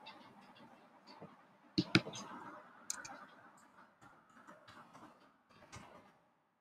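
Scattered clicks of a computer mouse and keyboard keys, a few sharp ones, the loudest about two seconds in, with a faint background hiss.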